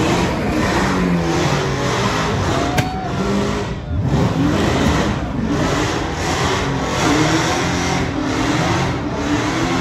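Car engine revving hard and wavering in pitch as the car spins donuts, swelling and fading every second or so.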